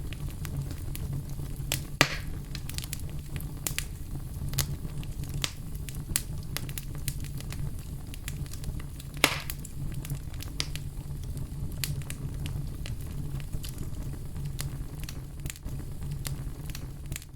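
Wood fire burning: a steady low roar under a constant scatter of crackles, with two sharper pops, about two seconds in and a little after nine seconds. It cuts off abruptly at the end.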